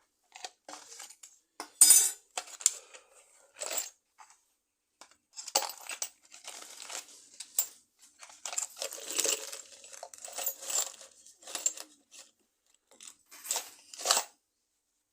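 Small metal hardware clinking and rattling as it is handled and sorted through, in irregular clusters with short pauses.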